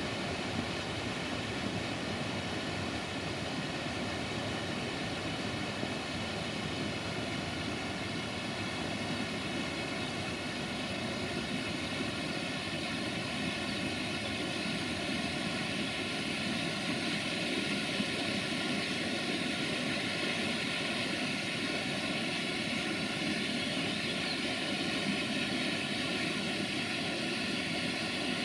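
Waterfall: falling water rushing steadily.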